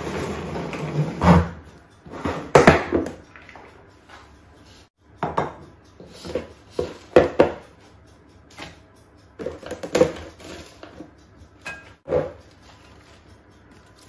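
Plastic salad spinner running with a steady rattle that stops with a knock about a second and a half in. Then irregular knocks and clatter as the plastic basket and lid are handled and the washed salad leaves are tipped into a glass bowl.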